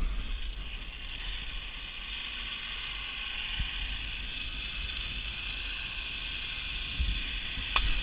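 Zipline trolley pulleys rolling along the steel cable: a steady high whir that builds about a second in and holds, with wind rumble on the microphone and a sharp click near the end.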